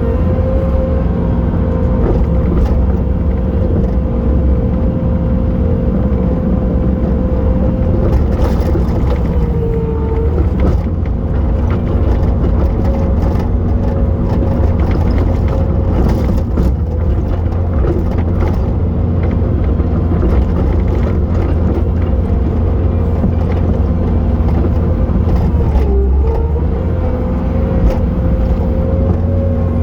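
Bobcat T870 track loader's diesel engine running hard with a steady hydraulic whine, which sags in pitch briefly twice under load, about ten seconds in and near the end, with scattered knocks and scraping from the bucket working snow.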